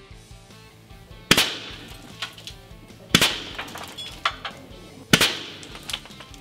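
Three sharp shot reports about two seconds apart, each with a short ringing tail, over background music with a steady beat.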